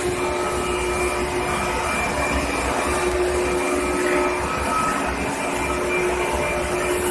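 Electric furnace line heating carbon steel, running steadily: a continuous industrial hum with a few held tones over an uneven low rumble.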